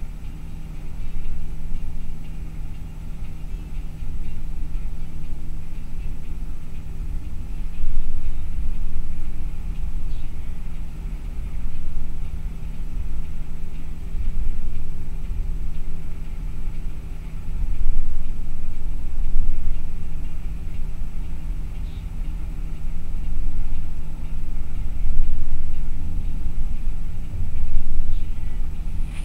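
Inside a bus cruising on a highway: a steady engine drone with heavy road rumble that swells and eases every few seconds.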